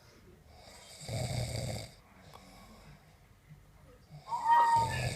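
A sleeping person snoring: two loud snores, one about a second in and a louder one about four seconds in, with quiet breathing between.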